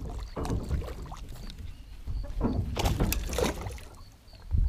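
Water splashing in irregular bursts over a low wind rumble, loudest between about two and a half and three and a half seconds in: a hooked largemouth bass thrashing at the surface as it is brought in.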